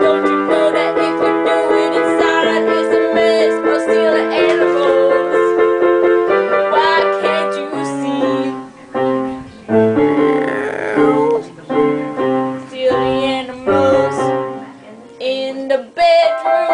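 Background music on a keyboard: held chords for the first half or so, then separate, detached notes with short gaps between them.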